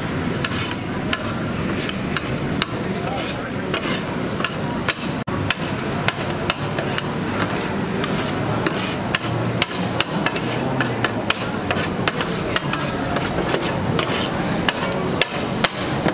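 Repeated sharp knocks of a metal kitchen utensil at a street-food stall, about two to three a second and irregular, over steady background noise.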